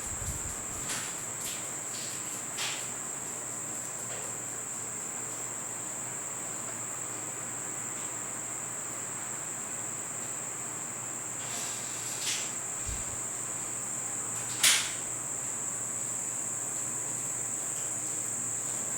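Crickets trilling steadily at a high pitch, with a few short clicks; the loudest click comes about three-quarters of the way through.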